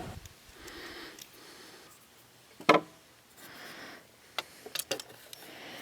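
Small parts being handled: light clicks and taps, one sharper click about two and a half seconds in and a few smaller ones near the end, with faint brushing hiss in between.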